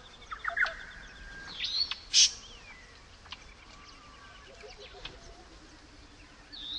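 Several birds calling: quick falling whistles, a rising whistle followed by a loud harsh note about two seconds in, and a low, rapid pulsing call in the second half.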